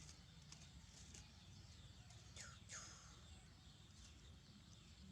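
Faint outdoor ambience with a bird calling: two quick chirps sweeping downward in pitch about two and a half seconds in, with a few fainter high chirps around them.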